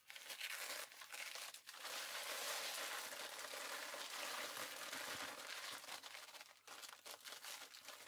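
Dry Quikrete crack-resistant concrete mix pouring out of its paper bag into a plastic mixing tub, a steady hiss with the paper bag crinkling and rustling as it is shaken empty, broken by a couple of brief pauses early on.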